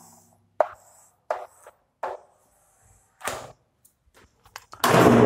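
Chalk tapping and scraping on a chalkboard as lines are drawn: scattered sharp taps, a scratchy stroke about three seconds in, and a louder, longer sound near the end.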